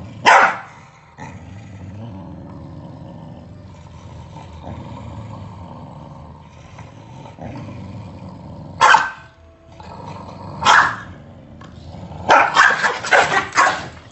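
Corgi growling low and steadily, with sharp barks breaking in: one near the start, two more in the middle, and a quick run of barks near the end.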